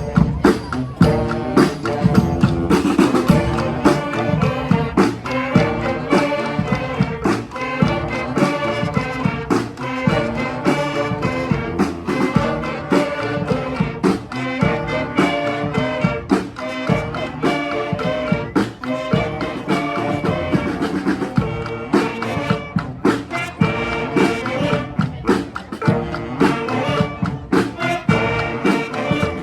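Live brass street band playing an upbeat tune: horns carrying the melody over drums keeping a steady beat.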